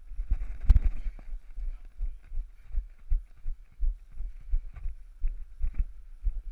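A chain-link gate clanks sharply under a hand about a second in, then footsteps thud steadily on a leaf-covered dirt trail at about two to three steps a second, picked up through a body-worn camera.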